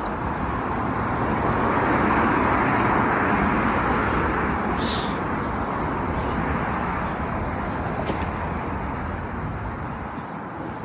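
Street traffic noise: a vehicle passing, swelling about two seconds in and slowly fading, with a brief high squeak about five seconds in.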